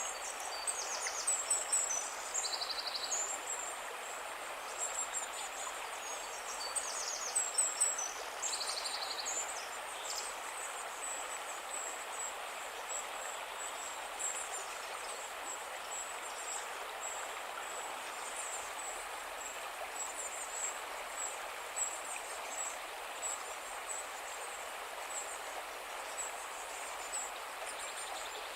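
A calm river flowing steadily. High bird chirps and trills sound over it, busiest in the first nine seconds or so.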